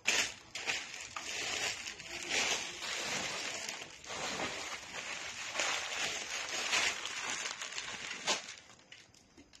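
Plastic bags and clear plastic wrapping on folded clothes crinkling and rustling as they are handled, in uneven crackling bursts that die away near the end.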